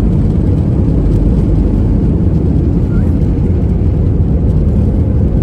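Steady low rumble of an airliner's engines and rushing air, heard inside the passenger cabin.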